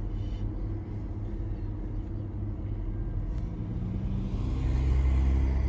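Low, steady motor-vehicle rumble that grows louder about four and a half seconds in.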